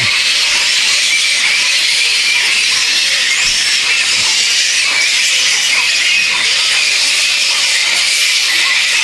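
Roosting colony of flying foxes (large fruit bats) giving a dense, steady chorus of high-pitched squeaks and chatter.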